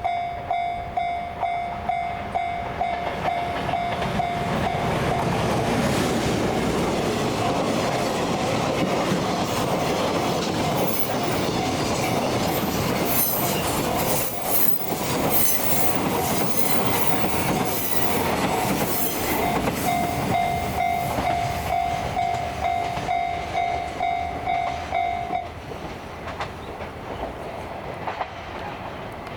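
Japanese level-crossing warning bell ringing about twice a second while a JR Freight EF510 electric locomotive and its train rumble over the crossing, wheels clattering on the rail joints. The train noise covers the bell mid-passage; the bell stops about 25 seconds in as the train clears.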